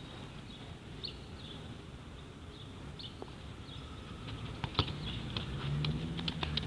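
Small birds chirping about once a second. Then, about five seconds in, a sharp thud of a football being kicked, followed by quick slapping footsteps of a child running in sandals on a hard court.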